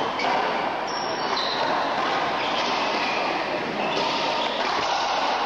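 Racquetball rally: a few sharp cracks of the ball off racquets and court walls over a steady wash of hall and crowd noise.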